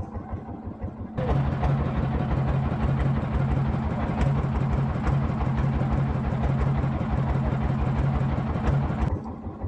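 Boat engine running: a steady low pulsing that gets much louder and fuller about a second in, then drops back near the end.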